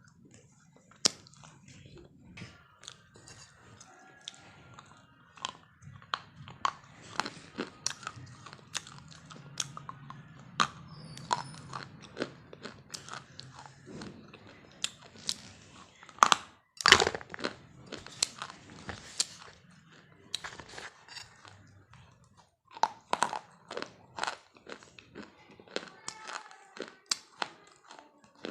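Someone chewing something crunchy, with irregular sharp crunches and a louder run of crunches a little past the middle.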